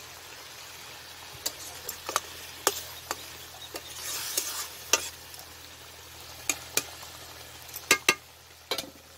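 Metal spatula stirring a simmering curry in a metal kadai: scattered sharp clinks and scrapes of metal on the pan, with a soft hiss from the gravy about halfway through.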